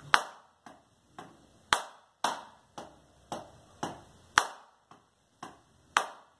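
Drumsticks striking a practice pad one stroke at a time, about two strokes a second, playing an inward paradiddle slowly. A few strongly accented strokes stand out among softer ghost notes.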